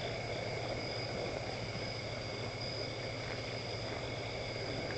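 Steady insect chorus: several high, unbroken tones held at constant pitch over a low, even hiss.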